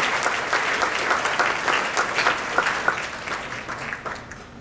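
Audience of seated dinner guests applauding, the clapping thinning out and dying away over the last second or so.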